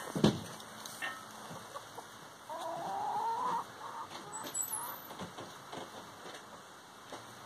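Backyard hens calling while foraging: one long, wavering call of about a second, starting about two and a half seconds in, followed by a few shorter clucks. A sharp knock sounds just after the start.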